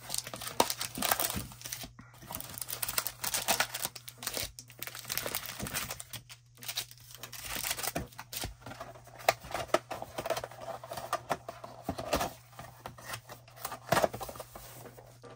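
Plastic wrapping on a box of hockey trading cards being torn open and crinkled, with irregular crackling throughout.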